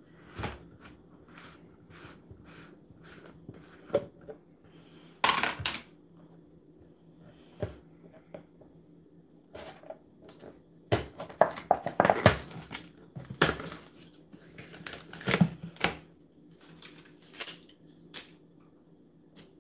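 Crisp crackling and plastic clicks as a tub of pork rinds is handled and the dry rinds are rummaged through, in irregular bursts that are loudest about five seconds in and again from eleven to thirteen seconds in.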